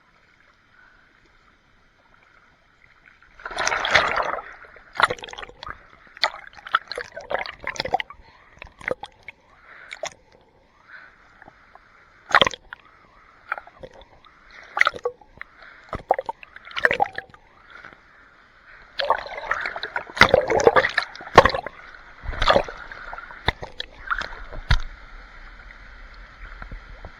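Water splashing and sloshing in irregular bursts as a person swims, arm strokes churning the pool's surface. The splashing starts about three seconds in, after a quiet moment.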